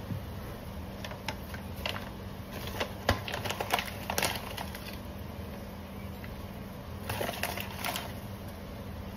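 Light clicks and knocks of kitchen items being handled, coming in a quick run from about a second in to the middle and again briefly near the end, over a faint steady hum.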